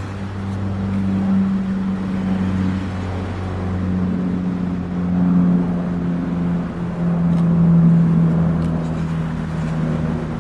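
Steady engine drone, a low hum whose pitch drifts slowly lower.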